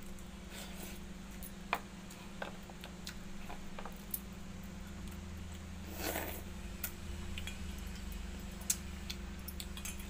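Eating watered rice by hand from a steel bowl: scattered small clicks and clinks as the fingers work in the bowl, and a short noisy mouthful about six seconds in, over a steady low hum.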